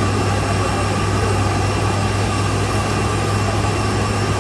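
Steady engine noise with a constant low hum under an even hiss, unchanging throughout.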